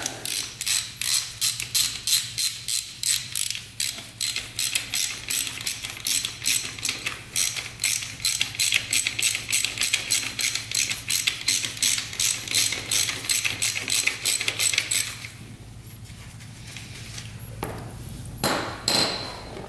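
Socket ratchet wrench clicking in a steady run of back-and-forth strokes as it backs out the gearbox oil drain bolt under a 1983 Honda CR250's engine. The clicking stops about three quarters of the way in, followed by a couple of knocks near the end.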